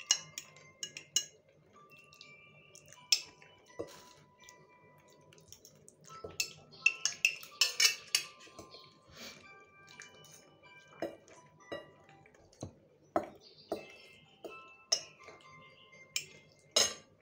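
A metal fork clinking and scraping against a glass plate during eating, in irregular sharp clinks every second or so.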